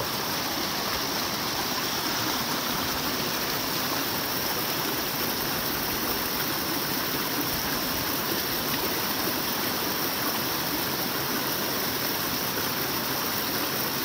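Small mountain stream spilling over a rock ledge in a short cascade between boulders, a steady rush of water.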